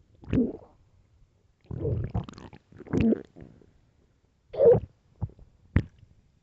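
Human stomach growling: a string of separate short gurgles and squelches with quiet gaps between them, ending in two brief pops.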